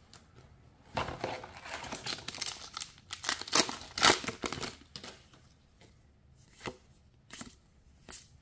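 Foil wrapper of a MetaZoo Native booster pack being torn open and crinkled, starting about a second in and lasting some four seconds. After it come a few short clicks as the cards inside are handled.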